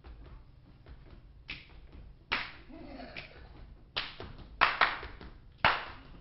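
Dancers' hand claps and slaps in a rhythmic body-percussion routine: light quick clicks at first, then several sharp, loud claps from about two seconds in.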